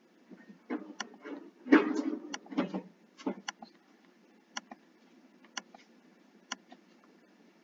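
Computer mouse clicking, sharp single clicks roughly once a second as points are placed along a clipping path. A louder stretch of shuffling noise comes between about one and three seconds in.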